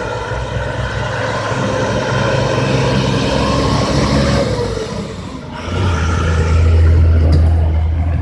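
Heavy diesel engines of a bus and a lorry running at low speed. About six seconds in, one engine grows louder and deeper.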